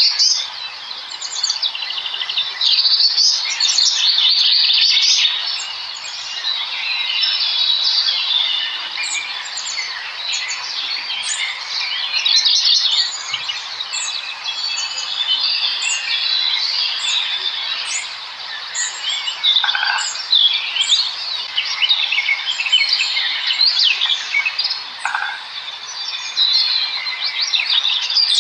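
A flock of small birds chirping and chittering together: a dense, continuous chorus of many short, high calls and trills overlapping one another.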